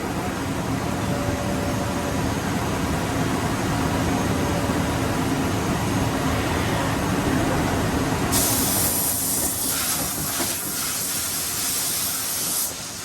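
Kitamura Mycenter 0 vertical machining center's two-pallet changer cycling, with steady machine running and a low hum. About eight seconds in a loud hiss starts suddenly, lasts about four seconds and cuts off near the end.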